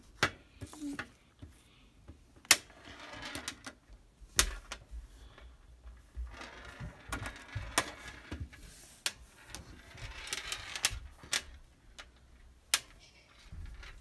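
Irregular sharp clicks and taps of small hard toys being set down and moved on a hard surface, with soft rustling handling sounds in between.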